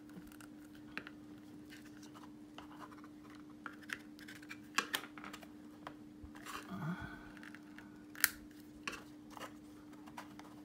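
Small clicks and scrapes of a clear plastic action-figure display stand, its segmented arm being taken apart and refitted shorter, and the figure pushed onto it. The sharpest clicks come about five and eight seconds in, over a faint steady hum.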